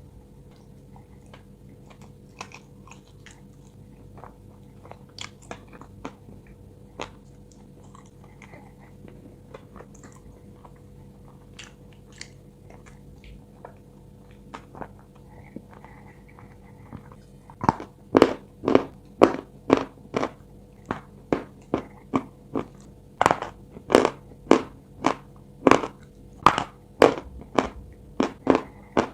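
A person biting and chewing small pieces of chalk: faint, scattered crunches at first, then a little past halfway steady loud crunching at about three chews a second.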